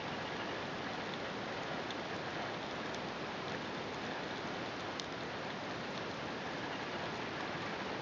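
Steady underwater ambient hiss picked up by a submerged camera, with faint scattered clicks and crackles and one sharper click about five seconds in.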